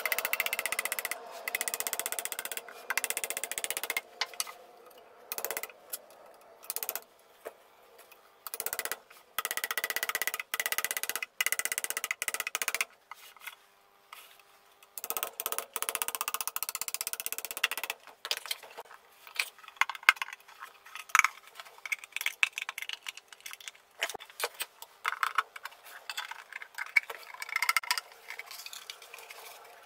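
Small hammer tapping a flat screwdriver into the soldered seam of a metal instrument case to break it open: sharp metallic taps, with stretches of scraping in the first half and dense quick taps and knocks in the second half.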